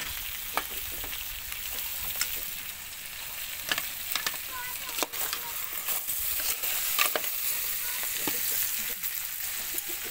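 Crab pieces with onions and turmeric frying in hot oil in a metal pan, a steady sizzle broken by the irregular clinks and scrapes of a metal spoon stirring against the pan.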